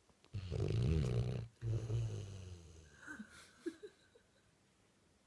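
Basset hound snoring in deep sleep: a loud snore about a third of a second in, a second breath straight after that fades away, then a few faint high squeaks from the nose before a pause.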